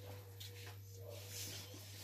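Faint clicks and mouth sounds of people eating chicken with their hands, over a steady low electrical hum, with a thin steady whine that fades out about one and a half seconds in.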